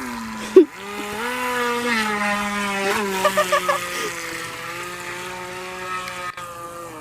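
Remote-control boat's motor whining steadily as the boat runs at speed, its pitch climbing about a second in and then holding. A sharp knock comes just before the climb.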